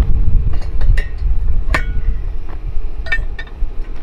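Wind buffeting the microphone as a low rumble, with a series of sharp knocks and clicks as a wooden target board is set into a metal target stand and a paper target is fixed to it.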